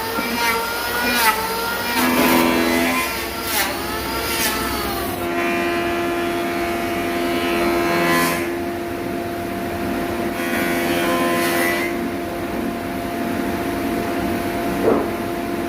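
Electric woodworking power tool motor whose pitch dips and recovers several times in the first five seconds, as under load in cuts, then runs steadily at a constant pitch. A sharp knock comes near the end.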